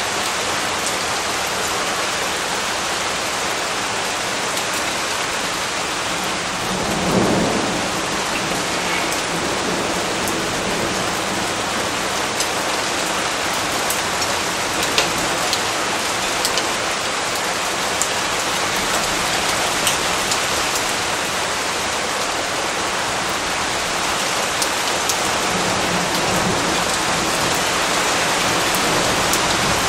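Steady rain falling on a surface, with scattered sharper drop ticks and a brief low rumble of thunder about seven seconds in.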